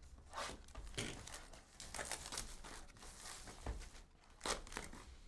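Panini Prizm trading-card box being opened: its wrapping and cardboard crinkled and torn, with faint scattered rustles and taps.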